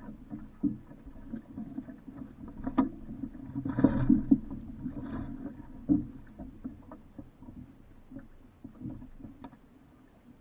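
Water splashing and sloshing against a small boat's hull, with scattered knocks and a louder splash about four seconds in.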